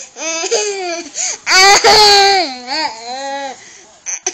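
A toddler's high-pitched playful squeals and shrieks, the loudest and longest about one and a half seconds in, trailing off near the end.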